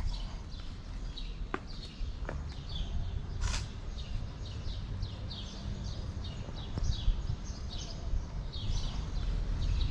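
Small birds chirping repeatedly in the background over a low rumble, with a short burst of hissing noise about three and a half seconds in.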